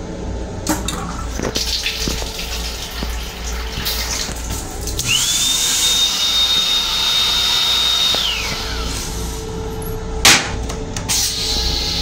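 Long Island Rail Road M7 railcar toilet flushing: a high whine climbs in, holds steady for about three seconds over a rushing hiss, then falls away. A sharp clunk comes near the end.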